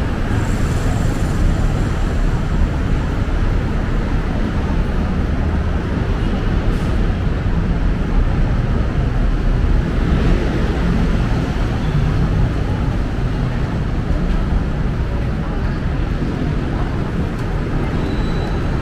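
Steady city street ambience: a continuous low rumble of busy road traffic, with indistinct voices of passers-by mixed in.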